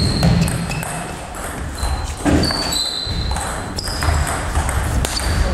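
Table tennis ball struck by the bats and bouncing on the table during a doubles rally: a quick string of short, sharp pings.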